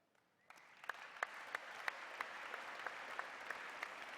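An audience applauding, starting about half a second in and carrying on steadily, with single sharp claps standing out from the general clapping.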